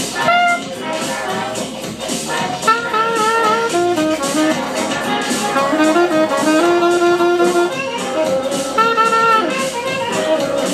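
Saxophone playing a live melodic line of held and moving notes, some with vibrato, over a DJ's backing track with a steady beat.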